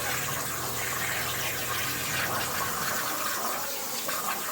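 CNC plasma cutter's torch cutting, a steady rushing hiss, with a low hum underneath that fades out about three seconds in.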